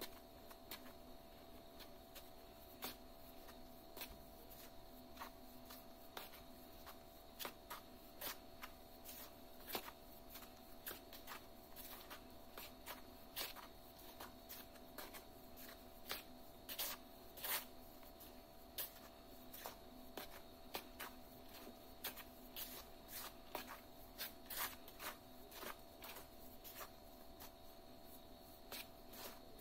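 Fingers rubbing butter and oil into flour in a mixing bowl: faint, irregular rustling and scratching as the flour is worked between the fingers, over a steady low hum.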